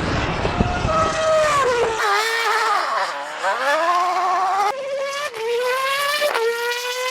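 Racing car engine at high revs: a loud rumbling launch, then a high engine note that climbs and drops sharply several times as it shifts up through the gears.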